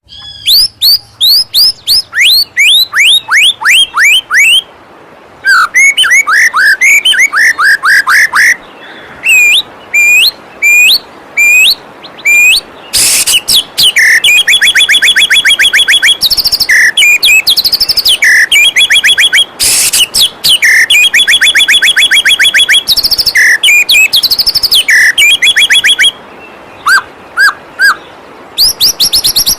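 White-rumped shama (murai batu) song from a bird-training track. It opens with quick runs of sharp downward-sweeping whistles, goes into long, fast rattling trills through the middle, and ends with a few short notes, all over a steady rush of falling water.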